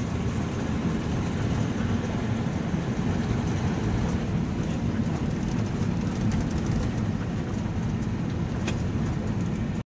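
A moving vehicle's steady low road and engine rumble. It cuts off abruptly just before the end.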